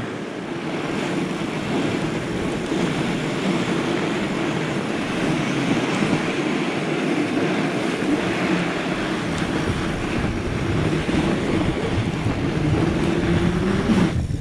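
Wind rushing over an action camera's microphone while fat-bike tires roll over packed snow at downhill speed, a steady noise.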